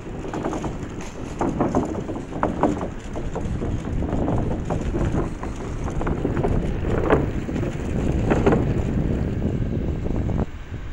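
Wind rushing over the microphone and the rumble of an electric scooter rolling along a boardwalk, with frequent irregular clacks. The noise dips briefly near the end.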